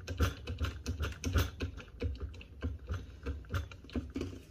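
Hand-pumped hydraulic cable lug crimper clicking and knocking with its handle strokes, roughly two to three clicks a second, as its dies are brought up onto a 2/0 copper cable lug.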